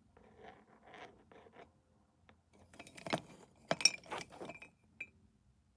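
Handling noise of small hard objects being set against a window pane: soft scuffs at first, then a run of sharp clicks, knocks and clinks, loudest about three to four seconds in.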